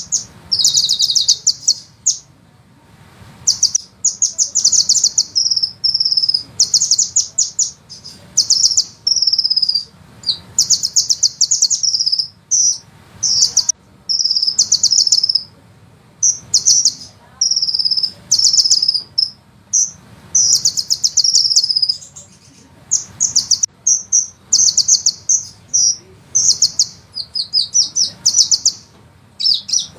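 Sunbird song: rapid high-pitched rolling trills, each a run of fast notes lasting one to two seconds, repeated over and over with short gaps. A faint steady low hum lies underneath.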